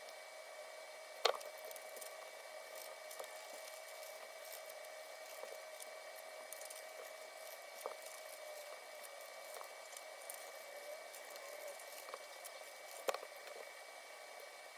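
Hands handling small jewelry and packing materials: light clicks and rustles, with two sharper clicks, about a second in and near the end, over a steady faint hum.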